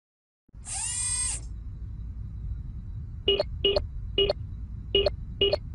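Sci-fi interface sound effects over a low rumbling drone: a short electronic swoosh about half a second in, then, from about three seconds in, five short keypad beeps as a code is tapped into an on-screen keypad.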